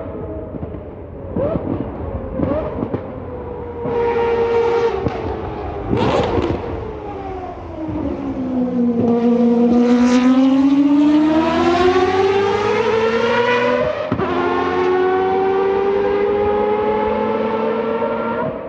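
Mazda 787B's four-rotor R26B rotary engine running hard. Its pitch falls to a low point about nine seconds in, then climbs steadily again as it accelerates, with a few sharp cracks along the way.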